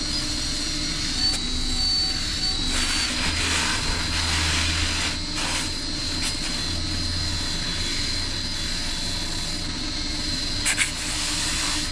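Wood lathe running steadily, its motor giving a high whine over a low hum, while a rag is held against the spinning oak top to rub in dye. A couple of sharp ticks come near the end.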